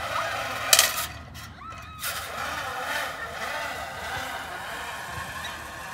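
A single loud metallic clank about a second in, as a playground zip line's trolley hits the end of its cable. Children's voices carry faintly in the distance.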